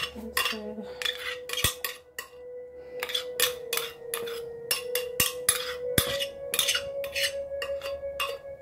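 Metal spoon scraping and clinking against the inside of a glass blender jar in many short, irregular strokes, scooping out thick turmeric paste.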